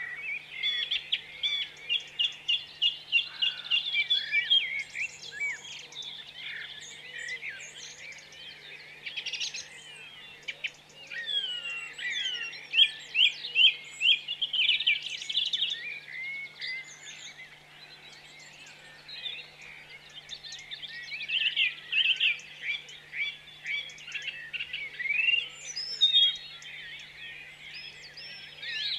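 Songbirds singing: several birds overlapping in runs of rapid, repeated high chirps and whistled phrases, quieter for a few seconds just past the middle before building again.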